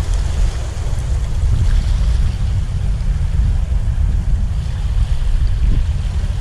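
Wind rumbling on the microphone over waves washing and splashing against the breakwater's rocks.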